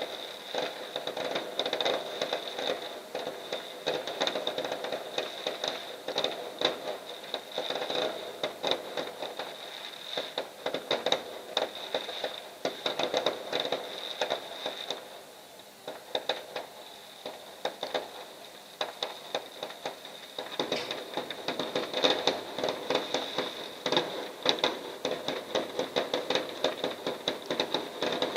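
Fireworks display: dense, rapid crackling and popping shots, thinning out for a few seconds in the middle and building back to a thick barrage.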